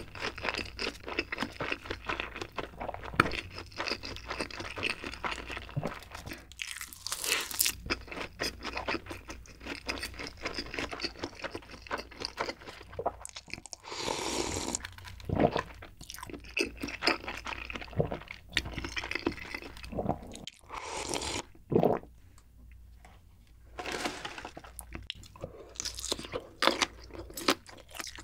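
Close-up eating sounds: crunchy, wet chewing of a seaweed-wrapped triangle kimbap. About halfway through come sips of broth from a cup ramen bowl. There is a short quieter pause a little after that.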